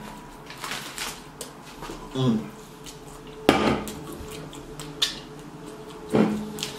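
Aluminium drink cans set down on a wooden table and handled, a few sharp knocks and clinks, the loudest about three and a half seconds in.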